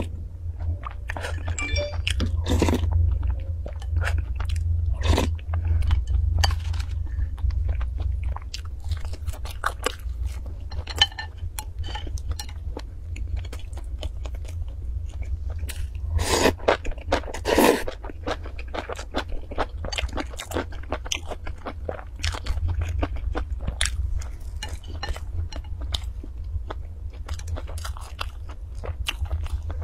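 Close-miked chewing and crunching of food, with quick crisp clicks of bites and mouth sounds throughout and a few louder bites a little past halfway, over a steady low hum.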